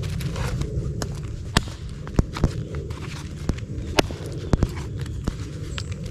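Hatchet chopping pine into kindling: about ten sharp, irregularly spaced knocks of the blade biting and splitting wood, over a steady low rumble.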